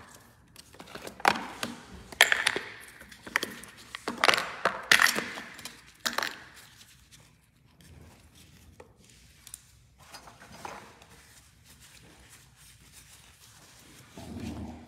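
A handful of sharp clicks and knocks of small hard objects being handled and set down on a table, five louder ones in the first six seconds, then only faint handling noise.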